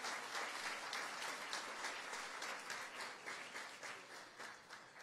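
Audience applauding, a round of hand claps that thins out and dies away near the end.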